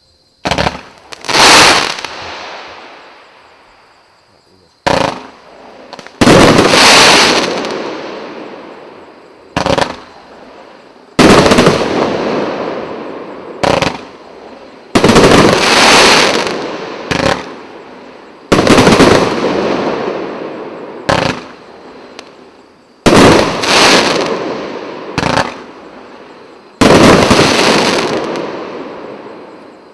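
A 49-shot, 1-inch fireworks cake firing in a fan. Shots go off in quick pairs every few seconds, each a sharp bang followed by a dense crackle that fades over a second or two.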